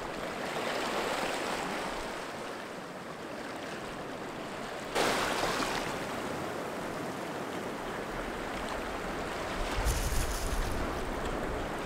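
Small sea waves washing over shoreline rocks, a steady wash that swells and surges louder about five seconds in, with a low rumble of wind on the microphone near the end.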